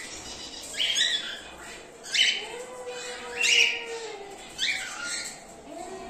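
Cockatiels calling in an aviary: a series of short, sharp chirps, about one a second, loudest a little past two seconds and around three and a half seconds in. A fainter, drawn-out lower tone runs under them from about two and a half to four and a half seconds.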